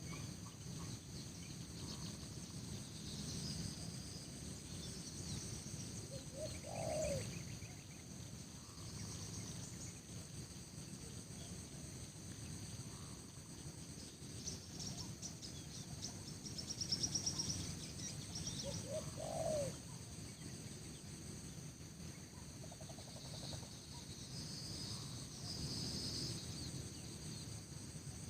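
Rural bird ambience: small birds chirping high and scattered, over a steady high insect drone, with two short low calls about 7 and 19 seconds in.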